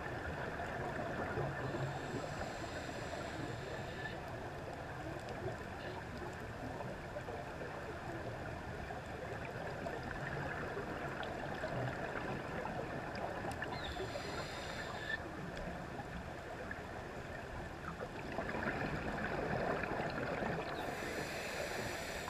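Muffled steady underwater noise on a camera housing, with a scuba diver's regulator exhaust bubbling out three times as the diver breathes out, the last time loudest as the diver passes over.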